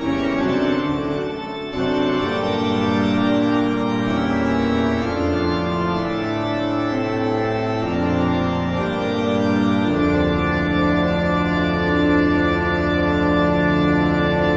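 Instrumental horror background music of long, held chords that change every couple of seconds, with a low chord sustained from about ten seconds in.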